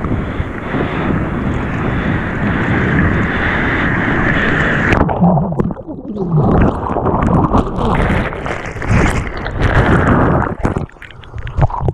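Wind buffeting the microphone over breaking surf. About five seconds in, the sound turns suddenly muffled as the camera goes under: churning, gurgling water with knocks as it tumbles in the whitewater.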